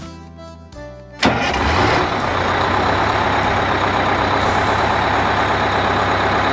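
Truck engine sound effect: a big engine kicks in suddenly about a second in and runs steadily and loudly, cutting off the background music that plays at the start.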